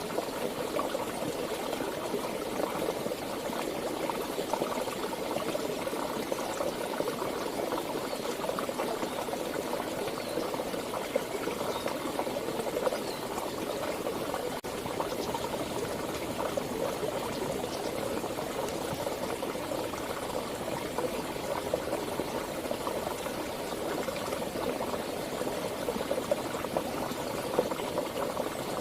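Stream water flowing and bubbling steadily over rocks, a continuous gurgling babble.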